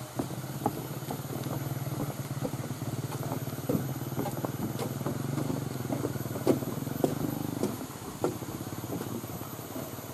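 Small motorcycle engine running steadily nearby, stopping near the end, with footsteps knocking on the wooden planks of a footbridge.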